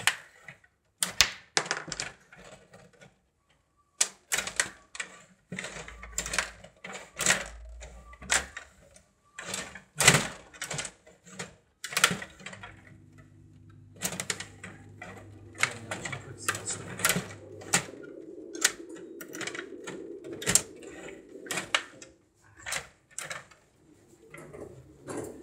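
Rod hockey game in play: irregular rapid plastic clicks and clacks as the rods are pushed, pulled and spun and the puck knocks against the players and boards. A low steady hum runs underneath from about halfway through.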